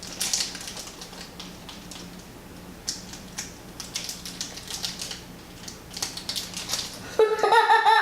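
Small plastic pin bags crinkling and rustling as they are handled and opened, with scattered light clicks. A child's voice breaks in near the end.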